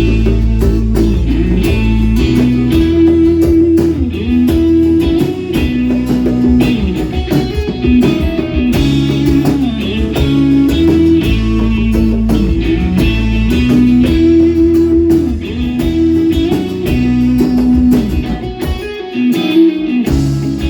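A rock band playing an instrumental passage, led by guitar over bass and drums, with a repeating melodic guitar figure.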